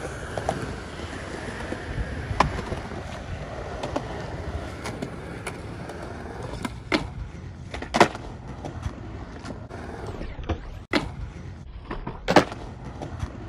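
Skateboard wheels rolling on concrete, with several sharp clacks of the deck and trucks hitting the ground. The loudest clack comes near the end, as the board is flipped over beside the ledge for a dark slide.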